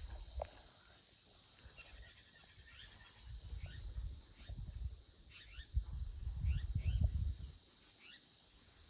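A steady high drone of insects, with a few short chirps over it and irregular low rumbles in the middle seconds.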